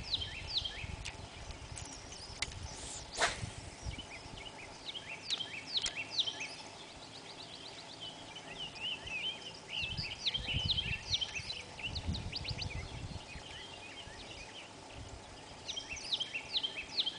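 Several birds singing, with repeated short chirps and quick trills, over a low uneven rumble. A single sharp click about three seconds in.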